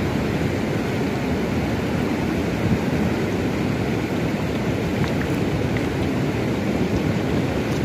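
Rushing water of shallow river rapids: a steady, deep rush with no change throughout.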